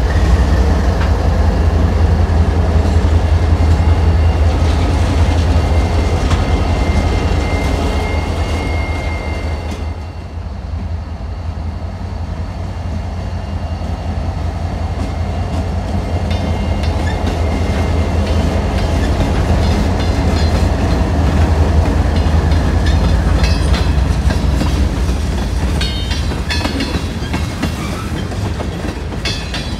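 Freight train rolling slowly past: the CSX GP40-3 and ES40DC diesel locomotives go by with a strong, steady low engine drone. Empty propane tank cars follow, with their wheels clicking over the rail joints in the last several seconds.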